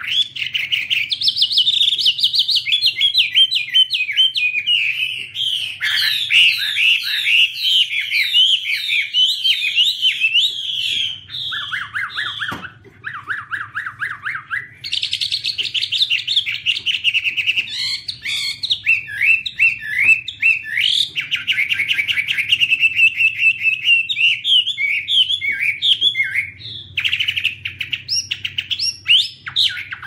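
Chinese hwamei (Garrulax canorus) singing an almost continuous run of fast, varied whistled phrases. About halfway through it drops briefly to a lower-pitched stretch of notes, then resumes the higher phrases.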